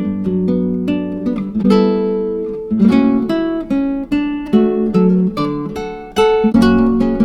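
Background music: a steady run of plucked string notes, each ringing and dying away.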